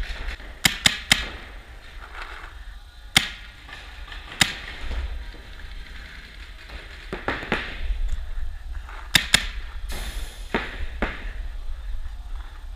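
Paintball markers firing in scattered shots: a quick run of three about half a second in, then single or paired shots every second or two.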